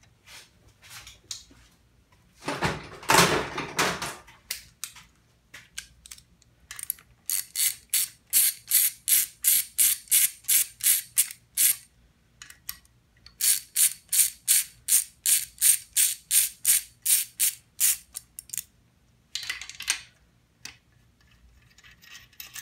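Hand ratchet clicking in two long runs of about four clicks a second, backing out the connecting-rod cap bolts on a Honda K24 engine block to take the cap off and read the Plastigauge bearing clearance. A loud clatter comes about two and a half seconds in.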